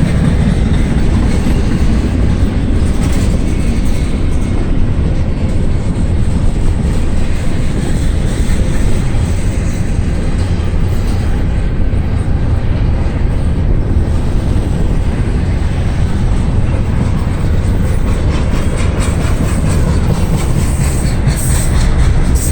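Freight train rolling past at speed, its cars' wheels clicking over the rail joints, with wind buffeting the microphone. The clicking comes through more sharply near the end.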